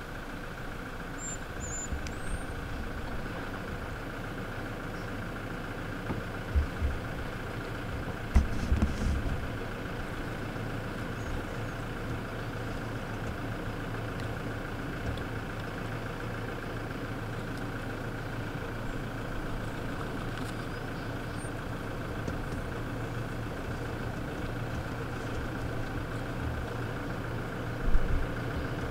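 A vehicle engine idling steadily, with a few short low thumps about six to nine seconds in and again near the end.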